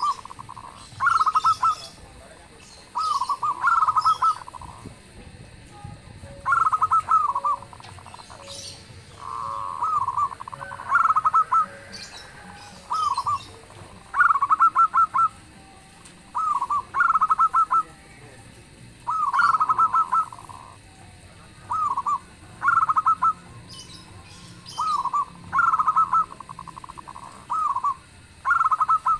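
Zebra dove (perkutut) cooing: short, loud, bubbling coo phrases repeated about every one to two seconds, with faint high chirps of other birds in between.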